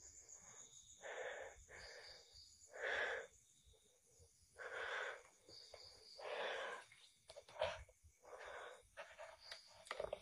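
A person breathing audibly: a string of about eight breaths in and out at uneven intervals, each lasting about half a second.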